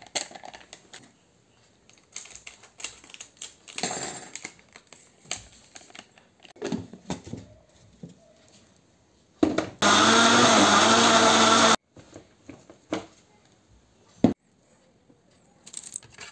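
Electric kitchen blender motor running for about two seconds, blending milk, bananas and malt drink powder into a milkshake. It starts and stops abruptly and is the loudest sound here, with clinks and knocks from handling the jar before and after.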